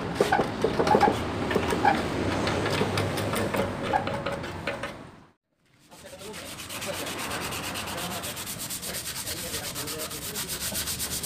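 Sandpaper rubbed by hand over a bare, paint-stripped motorcycle fuel tank in quick back-and-forth strokes. The sound cuts out completely for about half a second around the middle, then the sanding goes on steadily.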